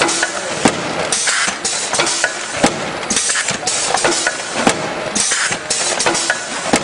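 Paper-bag take-off conveyor and its bag-closing machinery running: a steady mechanical din with repeated short hisses and a sharp clack about every two seconds.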